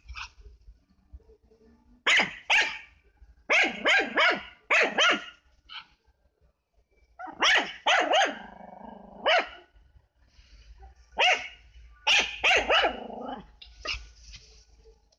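A small Pekingese dog barking repeatedly in short volleys of two to five barks, with pauses between them.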